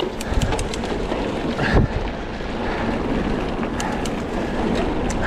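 Wind noise on the microphone while a mountain bike is ridden over rough ground, with scattered sharp clicks and knocks of the bike rattling. There is one louder knock a little under two seconds in.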